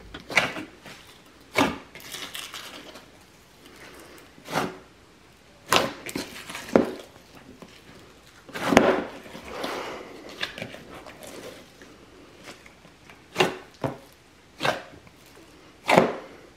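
Thick dish-soap and shampoo salt slime, full of surface bubbles, squeezed and kneaded by hand in a glass bowl, making slime sounds: short, sharp squishes at irregular intervals, the loudest about nine seconds in.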